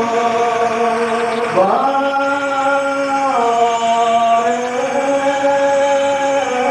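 Liturgical chant of the Holy Qurbana, sung on long held notes that step up in pitch, fall back and rise again.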